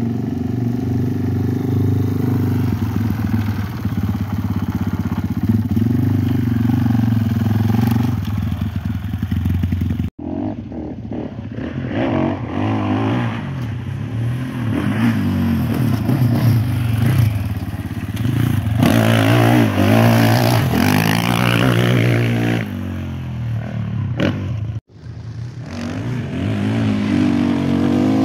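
Sidecar motocross outfit's motorcycle engine revving and running on a dirt track, its pitch rising and falling with the throttle. The sound breaks off abruptly about ten seconds in and again a few seconds before the end.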